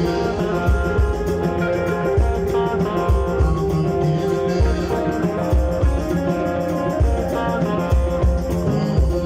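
A band playing live: electric guitars and bass guitar over a drum kit keeping a steady beat, with no singing in this stretch.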